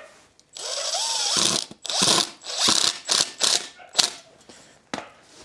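Power drill driving screws into a piece of wood in several spurts: one long run with the motor pitch rising and falling, then shorter bursts and clicks.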